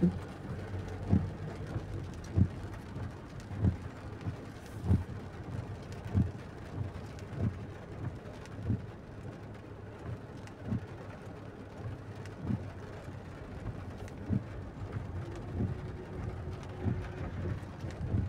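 Heavy rain falling steadily, with a soft low thump repeating about every one and a quarter seconds.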